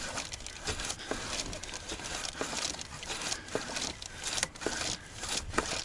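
Irregular scraping, rustling and small knocks of hands and tools working in a tight space, over a steady hiss.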